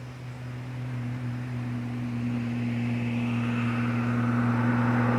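A vehicle on the road: a steady engine hum, with engine and tyre noise growing louder as it approaches.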